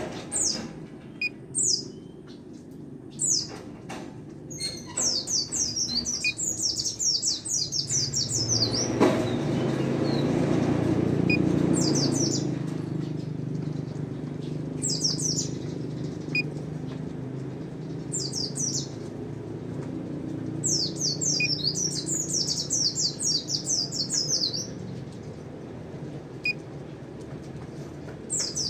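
Caged pleci (white-eye) singing in high, fast-trilled volleys, the rapid 'nembak' style that keepers prize. There are two long runs of several seconds each, with short phrases between them. A low rumble swells up in the middle and lingers under the song.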